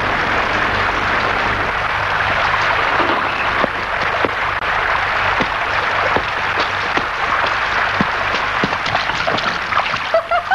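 Steady rain falling in a loud even hiss, with scattered drips and splashes.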